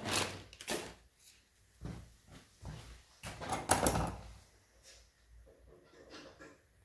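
Knocks and clatter of tools and parts being handled, in several separate short bursts with quiet gaps between, the loudest about three and a half to four seconds in.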